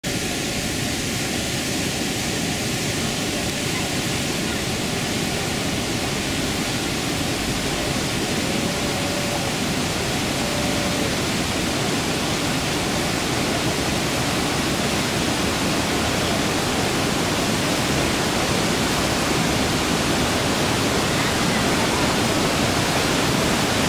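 Steady rush of water pouring from the Vaillancourt Fountain's concrete spouts into its pool, an even hiss that grows a little louder near the end.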